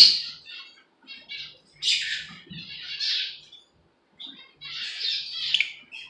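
Lovebirds squawking and chirping in short, shrill bursts: about half a dozen clusters of calls with gaps between, the loudest right at the start.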